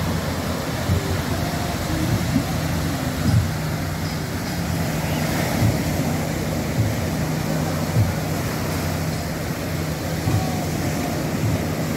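Small waves breaking and washing up on a sandy beach, with wind buffeting the microphone in low thumps every second or two and a steady low hum underneath.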